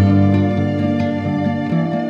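Soft instrumental background music with sustained chords.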